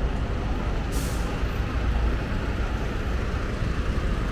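Fire engines' diesel engines running with a steady low rumble as the trucks pull away, with a short hiss of air brakes about a second in.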